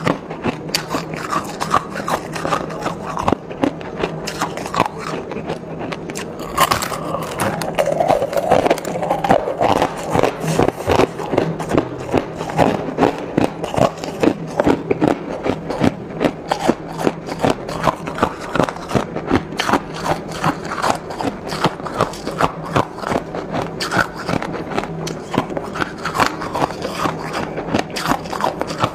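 Close-miked chewing of hard ice chunks crusted with freezer frost: a dense run of crisp crunches and cracks, several a second, as the ice is bitten and ground between the teeth.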